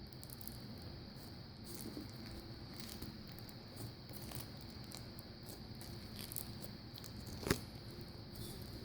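Crunchy slime with clear filler beads being squished and worked by hand, the beads crackling in many small clicks, with one sharper pop about three-quarters of the way through.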